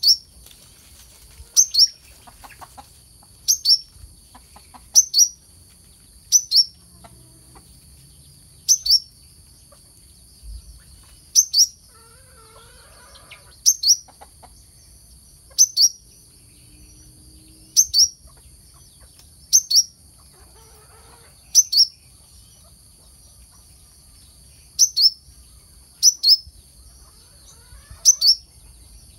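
Brown-throated sunbird (kolibri kelapa) calling: a sharp, high, downslurred chip repeated every second or two, now and then doubled. A steady high hiss runs underneath.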